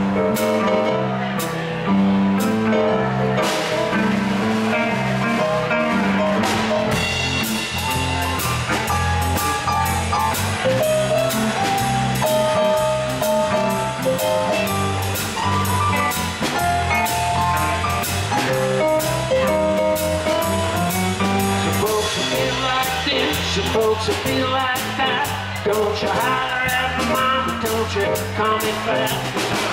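Live blues band playing a 12-bar blues in C: electric guitar, electric bass and keyboard over a drum kit keeping a steady beat.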